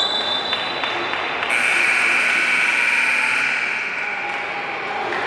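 Spectators cheering and shouting in a sports hall, many voices together, swelling about a second and a half in. A steady high whistle tone sounds at the start and stops about half a second in.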